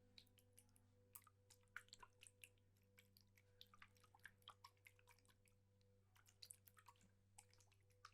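Quiet water sounds: small drips and splashes falling irregularly, several a second, over a steady low drone of background music.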